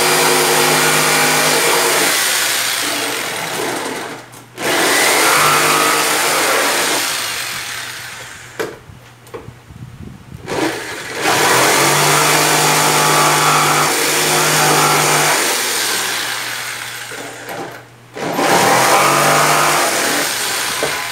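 Corded jigsaw cutting into the top of a painted speaker cabinet, trimming a handle cutout a little wider. The saw runs in four bursts: a short stop about four seconds in, a pause of about two seconds near the middle, and a brief stop a few seconds before the end.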